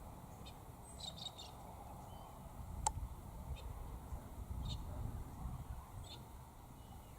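Birds giving short, high chirps now and then, with a single sharp click about three seconds in, over a low rumble.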